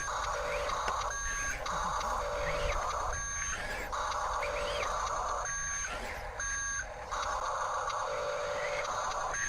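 Electronic reversing-style beeping that repeats irregularly, alternating with stretches of hiss, over a steady low rumble.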